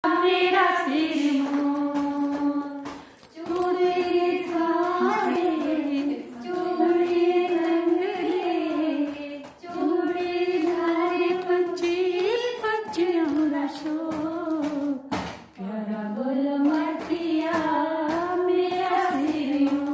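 A woman singing a Himachali folk song solo and unaccompanied, in long held phrases with short breaks between them.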